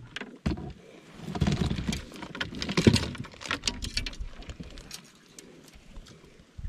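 Irregular clicks, light rattles and a few dull knocks of gear being handled in a small boat, quietening near the end.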